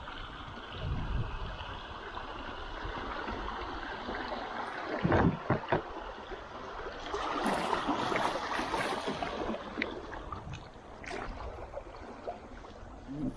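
River water running and splashing around a kayak, with a few sharp knocks about five seconds in and a stretch of heavier splashing soon after.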